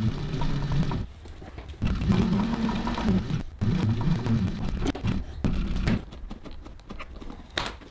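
TechSew cylinder-arm industrial sewing machine stitching leather in several short runs, its motor speeding up and stopping between them. After about six seconds it gives way to quieter handling with a few small clicks.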